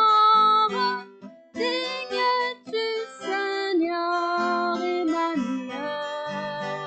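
A woman singing a slow worship song with long held notes, accompanied by a strummed acoustic guitar.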